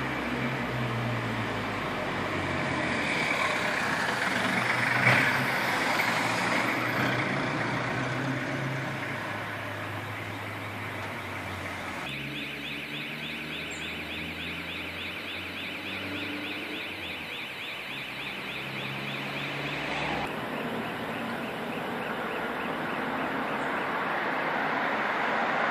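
Light city street traffic: a few cars driving past and moving through an intersection, with engine hum and tyre noise, loudest about five seconds in.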